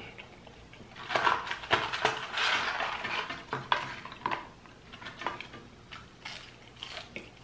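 Close-miked handling of food on a plastic serving tray: a paper fry carton picked up and rustled, with clicks and light clatter, strongest between about one and three and a half seconds in. Scattered small clicks follow as fries are taken and eaten.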